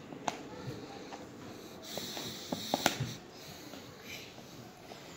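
A spoon stirring strawberries in cream and condensed milk in a bowl: soft wet scraping with scattered clicks of the spoon against the bowl, a few sharper ones close together about three seconds in.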